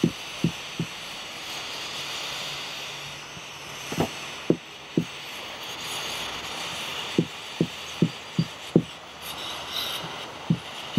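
Butane pencil torch hissing steadily as it melts polyethylene welding rod into a kayak hull, with about a dozen short, low pops coming in small runs.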